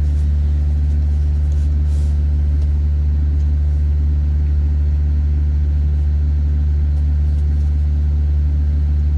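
A diesel engine idling steadily close by, a loud, constant low drone, with a few faint clicks of the plastic blower housing being handled.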